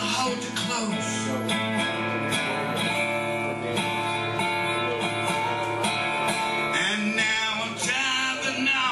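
Acoustic resonator guitar, wooden body with a round metal cover plate, strummed steadily as song accompaniment.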